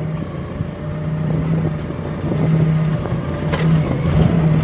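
Doosan 4.5-ton forklift engine running and revving, getting steadily louder while the forklift manoeuvres to line its forks up under the truck's rear guard bar. A brief knock about three and a half seconds in.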